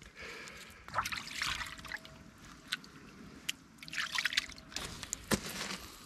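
Water splashing and trickling as a freshly gutted salmon is rinsed in shallow water, in two spells about a second in and about four seconds in, with a few sharp clicks and knocks between, the clearest just after five seconds.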